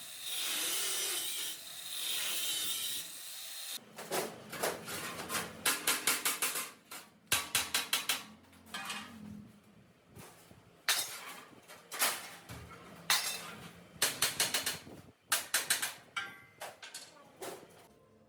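A few seconds of steady abrasive rubbing, then repeated short bursts of rapid clicking typical of a hand ratchet wrench being worked on a fastener.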